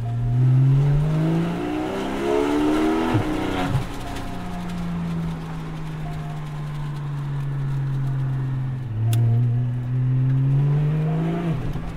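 Porsche 718 Spyder's naturally aspirated 4.0-litre flat-six with a Tubi Style catback exhaust, heard from inside the cabin as the car accelerates. The engine's pitch climbs for about three and a half seconds and drops sharply, runs steadily for a few seconds, then climbs again and drops just before the end. There is one sharp click about nine seconds in.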